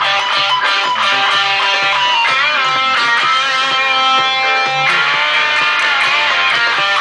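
Telecaster-style electric guitar playing a rock and roll part over a band backing with a moving bass line, with a few bent, wavering notes.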